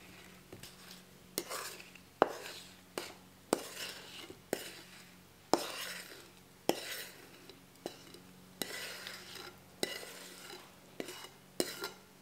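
A utensil clinking and scraping against a mixing bowl as wet strawberry-rhubarb pie filling is scooped out into the crust, with a sharp clink roughly once a second.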